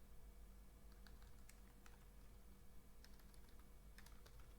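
Faint, scattered computer keyboard keystrokes at an irregular pace, over a steady low electrical hum.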